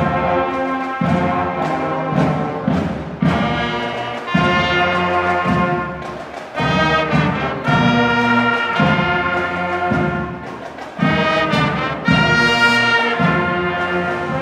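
Marching band playing live: trumpets, saxophones and other brass holding loud chords over drum strokes.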